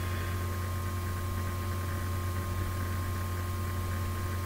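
Steady low hum with an even hiss and a faint thin steady tone above it: background noise of the recording, no speech.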